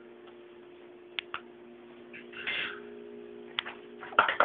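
A few light clicks and a short scrape of hands working at a frying pan while a crepe is folded, over a steady low hum.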